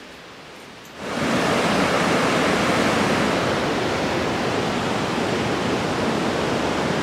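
Steady rushing of water, setting in suddenly about a second in and holding even.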